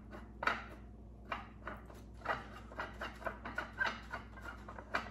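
A metal screw rod being turned out by hand from the threads of a 3D-printed plastic rocket tail section: a string of short scraping clicks, which come faster about halfway through.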